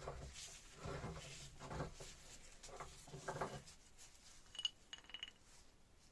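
Metal parts of an old hydraulic jack handled during disassembly: irregular creaking scrapes, then a few short, bright metallic clinks about four and a half seconds in.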